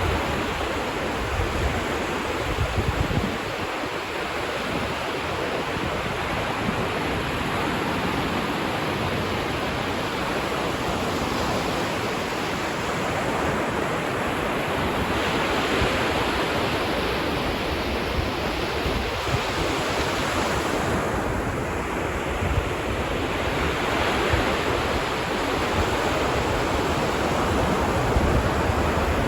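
Ocean surf washing onto a beach: a continuous rushing hiss that swells and eases gently. Low rumbles of wind on the microphone come through near the start and again near the end.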